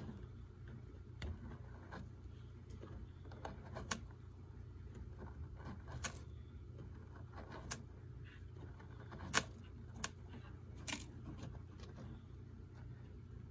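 A tortoise's hind feet scraping and flicking gravelly soil as it digs a nest hole for its eggs. The sound is a series of irregular gritty clicks, the loudest a little past the middle.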